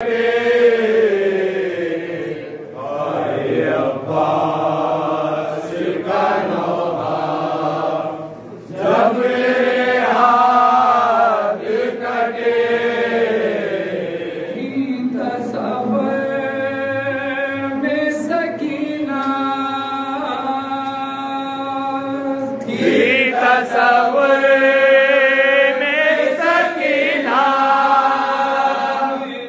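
Group of men chanting a nauha, a Shia mourning lament in Urdu, into a microphone, their voices together in long held phrases with a brief break about eight seconds in.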